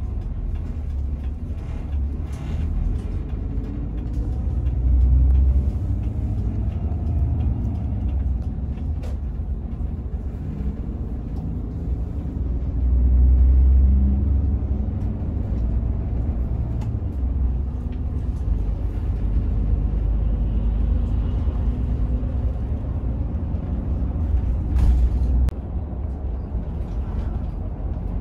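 Cabin noise of a Hino RM 280 bus under way: a steady low rumble of engine and road, swelling briefly twice, with a few short clicks and knocks.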